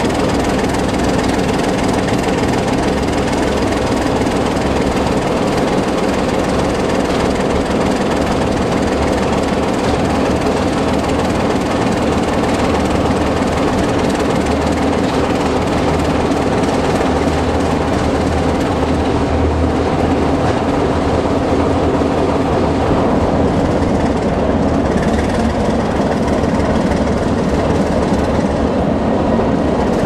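Baldwin DS44-1000 diesel switcher's engine running steadily under load as it pulls a freight train, heard close from the cab beside the long hood, together with the rumble of its wheels on the rails.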